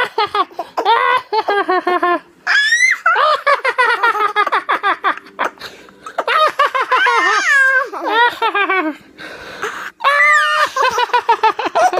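A toddler laughing hard in rapid, high-pitched bursts of giggles, with a couple of rising squeals.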